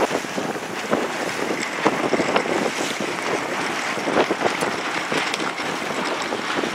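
Water splashing irregularly against a sailboat's hull under way, with wind rushing over the microphone.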